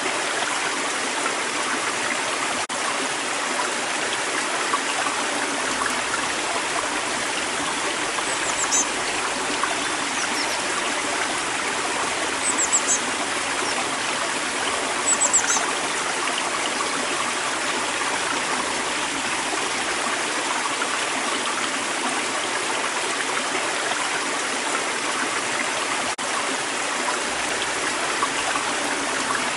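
River water flowing steadily. A small bird gives short, high chirps a few times, clustered in the middle.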